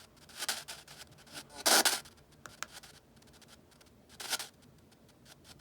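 A spirit-box sweep radio played through an adjustable noise-control unit turned down low: only short, scattered bursts of static hiss with faint clicks between them, the strongest burst about two seconds in and another near the end. This is the residual sweep noise after the noise setting has been lowered.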